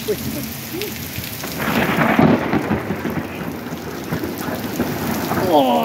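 Steady rain falling, with a thunderclap that breaks with a crackle about a second and a half in and rumbles on for about two seconds.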